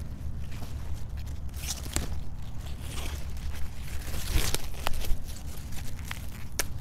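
Outer leaves of a Castelfranco-type radicchio head being torn and snapped off by hand: a few crisp tearing and crunching sounds, loudest about two seconds in and again around four to five seconds in, over a steady low rumble.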